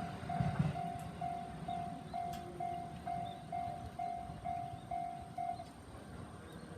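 Railway level-crossing warning bell ringing, a clean repeated tone about twice a second, then stopping about five and a half seconds in as the crossing clears. The passing train's rumble fades out in the first second.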